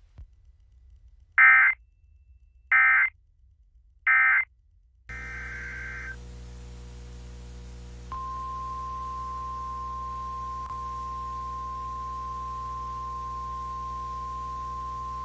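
Emergency Alert System SAME header: three short, loud bursts of warbling digital data tones, about a second and a half apart. Then a single steady, high alarm tone starts about 8 seconds in and holds: the weather radio's warning alert tone that comes before a tornado warning is read.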